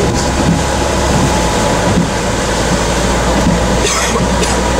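Steady rush of heavy rain and tyres on a flooded road, heard from inside a moving car, over a low engine and road rumble.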